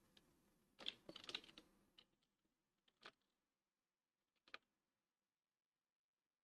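Faint clicking of a computer keyboard: a quick run of keystrokes about a second in, then single clicks about three and four and a half seconds in.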